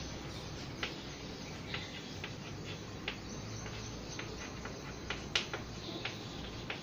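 Chalk writing on a chalkboard: short taps and scratches of the chalk at an uneven pace over a low, steady room hiss.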